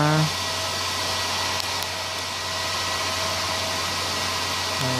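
Cooling fan of an Izumi MAX 120 inverter welder running steadily at full speed: a constant airy whoosh with a low hum underneath.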